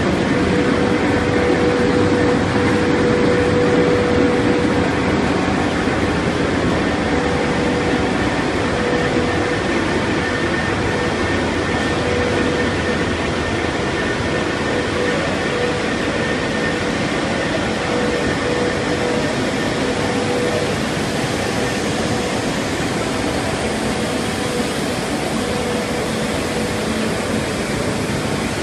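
Machinery of an organic fertilizer granulation line, rotary drums among it, running steadily: a dense mechanical drone with a faint whine that comes and goes.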